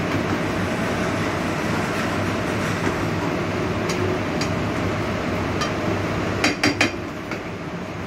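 Steady rushing hum of a commercial kitchen's gas range and extraction, with a wooden spoon stirring spaghetti in a frying pan. About six and a half seconds in come three sharp knocks of spoon and pan in quick succession.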